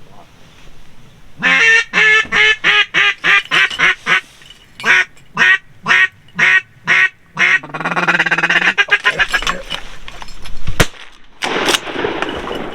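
Mallard duck call blown in a quacking sequence: a fast run of about a dozen quacks, then several slower, evenly spaced quacks, and a drawn-out call after them. A single sharp knock comes near the end.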